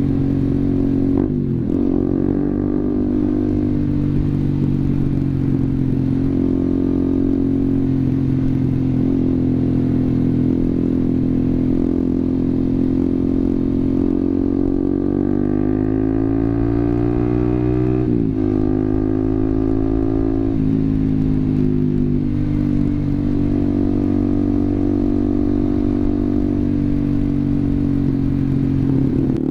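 Honda CBR150R's single-cylinder engine through an SC Project aftermarket exhaust, running steadily while riding. Its pitch shifts sharply a few times, about a second in and again about 18 and 20 seconds in, after a slow rise in pitch just before the 18-second change.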